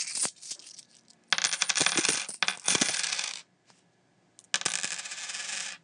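Coins clinking and jingling as they spill or are dropped. A few clinks come at the start, followed by two longer runs of dense clattering, the second starting about halfway through.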